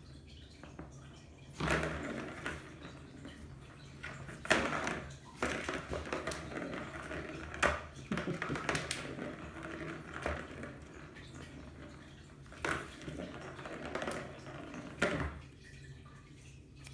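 Small plastic ball rolling and rattling around the plastic track of a cat toy as kittens bat at it, with a handful of sharp knocks.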